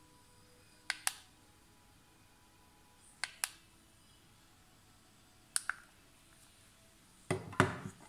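Plastic button on a Geratherm NonContact infrared thermometer pressed three times, each press a quick double click, about two seconds apart. Near the end, a louder clatter of plastic as the thermometer is slotted into its holder.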